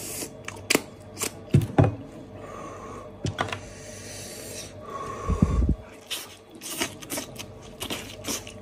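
Close-miked wet tearing, sticky squelches and sharp clicks of spicy braised lamb or goat meat being pulled apart and off the bone by hand, with a few low thumps. Near the end comes biting and chewing.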